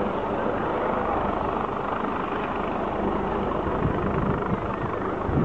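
Sea-rescue helicopter in flight, a steady, loud rotor-and-turbine drone.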